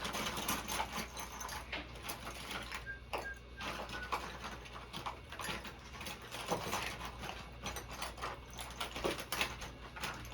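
Irregular clicking and scraping of plastic prying tools worked along the edge of a 2012 iMac's glued display to separate it from the case.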